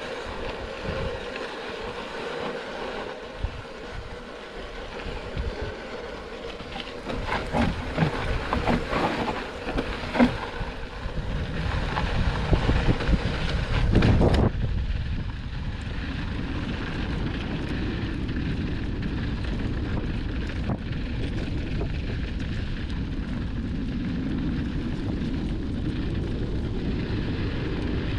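Wind noise on the camera microphone and tyre and frame rattle as a mountain bike descends a rough trail, with a run of clattering knocks around the middle. About halfway through the sound changes sharply to a steady low rush of wind.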